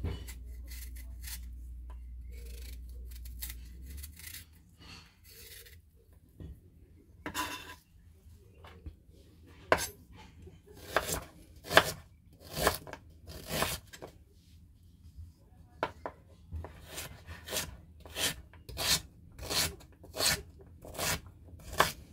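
Chef's knife working fresh ginger root on a bamboo cutting board: light scraping strokes as the skin is pared off, then sharp knocks of the blade hitting the board as it is sliced and diced, coming steadily about once or twice a second in the second half.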